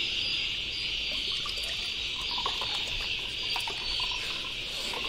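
Steady high-pitched chirring of insects, with faint sloshing of water in a plastic bucket and small handling ticks.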